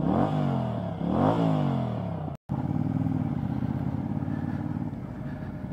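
Motorcycle engine revved twice, its pitch rising and then sliding back down each time. After a brief cut, a motorcycle engine runs steadily at low road speed, picked up by a helmet-mounted microphone.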